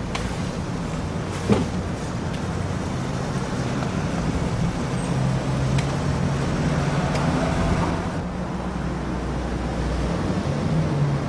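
Steady low background rumble and hum, with one sharp click about one and a half seconds in.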